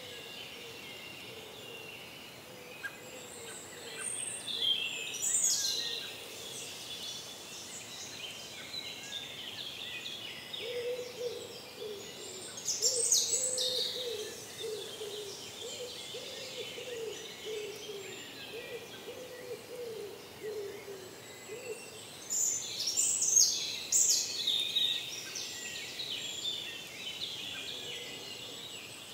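Woodland birds singing in several high bursts, with a run of low hooting notes repeated through the middle, over a steady faint rushing background.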